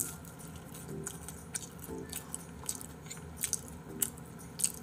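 Chewing french fries close to the microphone: irregular sharp, wet mouth clicks and smacks.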